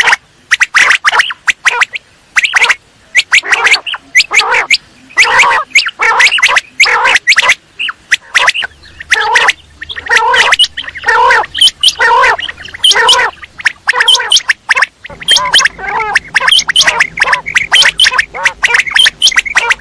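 Quail calling over and over: loud, short, sharp notes in quick clusters of two to four, repeated throughout with barely a pause.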